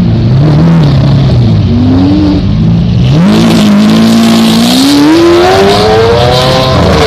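Lamborghini Aventador V12 running loud, with a short rev about two seconds in, then accelerating hard. The engine note climbs steadily from about three seconds in to the end.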